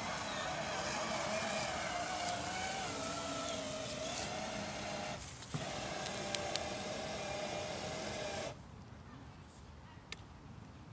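Electric drive motor and gearbox of a battery-powered toy Harley-Davidson ride-on motorcycle whining steadily, its pitch wavering under load as the toy pushes into a pile of dry leaves and gets stuck. The whine breaks off briefly about halfway through, then stops abruptly a couple of seconds before the end, leaving a few faint clicks.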